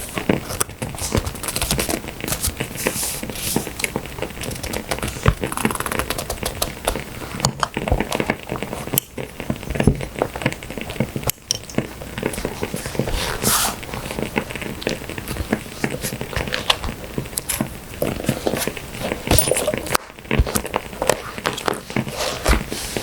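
Burning firewood crackling with dense, irregular pops, mixed with paper being handled, rustling and crinkling.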